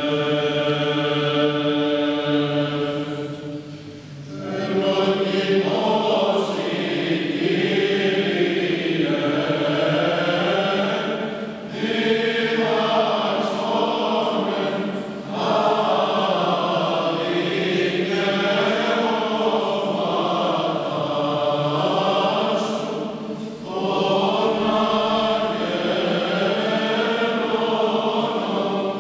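An Orthodox church choir of men and women chanting a hymn in long phrases, with short breaks between phrases; it opens on a long held note.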